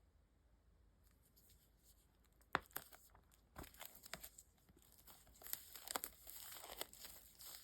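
Wrapping on a manga book or package being torn open and crinkled: quiet at first, then sharp crackles from about two and a half seconds in, turning into steady rustling near the end.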